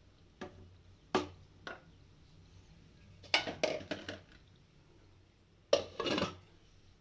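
Kitchen utensils knocking and clattering against pots or dishes: three separate knocks, then two short bursts of clatter.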